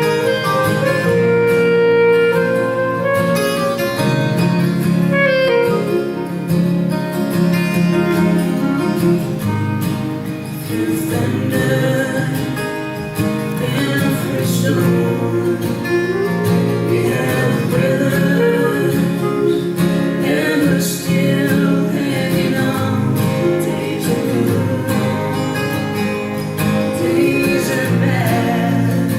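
A live band playing an instrumental passage of a song, with guitar and a melody line over a steady accompaniment.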